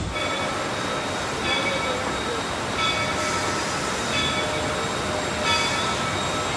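Narrow-gauge train running along the track: a steady rolling noise with short, high ringing tones from the wheels and track repeating roughly every second and a quarter.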